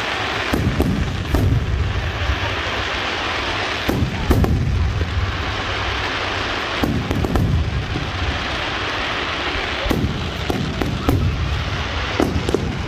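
Aerial fireworks display: shells bursting in clusters of deep booms about every three seconds, with sharp crackles between them over a steady noisy wash.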